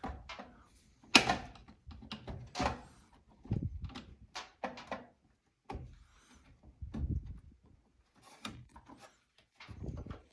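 Irregular plastic clicks, taps and knocks from a pick working at the plastic clips that hold an LG dryer's control board in place, the sharpest knock about a second in.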